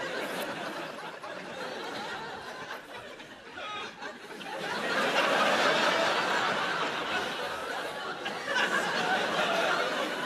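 Theatre audience laughing at a joke, the laughter swelling to its loudest about halfway through and rising again near the end.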